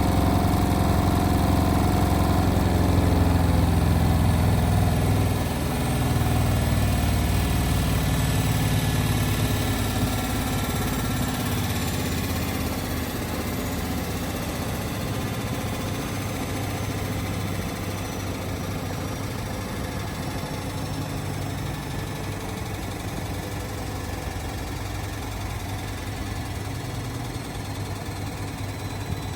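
Indesit WIL143 washing machine on its final spin, drum running with a loud low rumble that thins out after the first several seconds. It then keeps going more quietly, its pitch slowly falling as the spin winds down.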